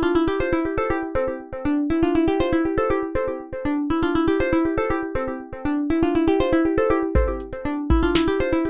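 Synthesized ringtone tune: a fast, even run of short keyboard-like notes repeating a melody. About seven seconds in, a deep bass and crisp high percussion join it.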